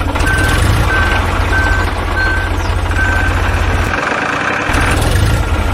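Tractor engine running with a steady, pulsing low rumble that briefly cuts out about four seconds in. Five short, evenly spaced beeps at one pitch sound over it in the first three seconds.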